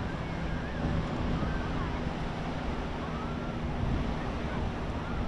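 Ocean surf washing onto the beach, a steady noise, with wind rumbling on the microphone.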